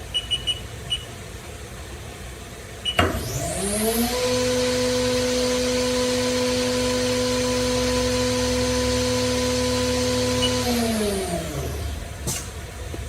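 Haas DM-2's 15,000 RPM spindle spinning up with a rising whine, holding a steady high whine for about seven seconds, then winding down. A few short beeps come near the start, and a click near the end.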